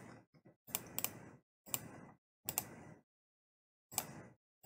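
Faint computer mouse clicks: about five sharp clicks spaced roughly a second apart, some as quick pairs.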